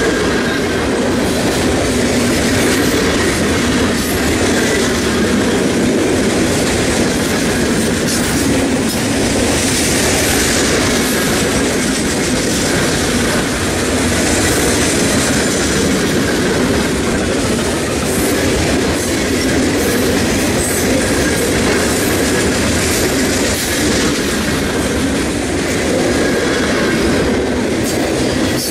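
Freight train of open-top hopper cars rolling past close by: steady loud noise of steel wheels running on the rails.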